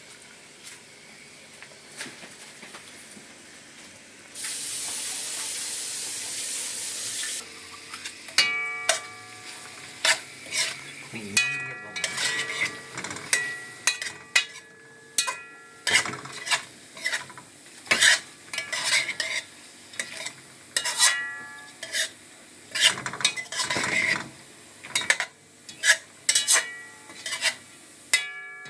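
Oil sizzling in a cooking pot for about three seconds. Then a metal spoon clinks and scrapes against the pot again and again, with ringing strikes, as small river shrimp are stirred while they fry.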